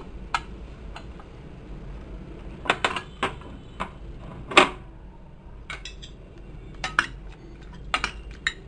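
Metal knocks and clinks from a pressure cooker being opened, its lid clanking against the pot. From about halfway through, a metal ladle knocks and scrapes against the inside of the pot as it works through cooked dal and snake gourd.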